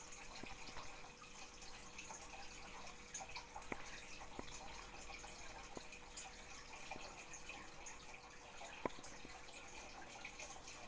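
Quiet room tone with a faint steady hum and a few scattered sharp clicks, one louder click about nine seconds in.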